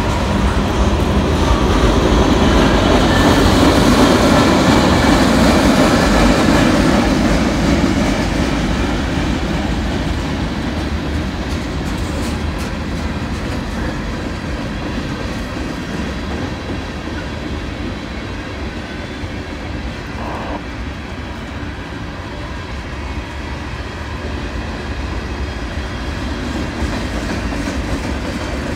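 CSX freight train rolling across a stone viaduct overhead. It is loudest in the first several seconds as the locomotives draw away, then settles to the steady roll of freight cars on the rails.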